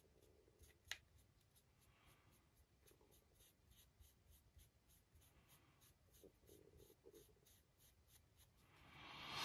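Near silence with faint rubbing and handling as a fine paintbrush works paint over a resin figure held in the hands. There is a short click about a second in, and a hiss that swells up near the end.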